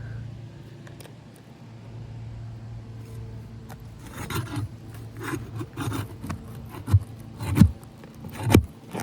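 Roof shingles being scraped and rubbed as they are worked loose around a nail, with irregular strokes starting a few seconds in and a few sharp knocks near the end.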